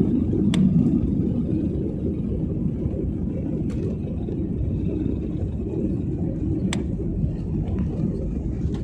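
Steady low rumble of an airliner cabin, the jet engines and airflow heard from a passenger seat, with a few faint clicks.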